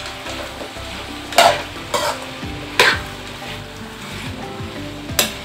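Diced vegetables frying in groundnut oil in a metal kadai, sizzling steadily as a metal spatula stirs them, with four sharper scrapes of the spatula against the pan.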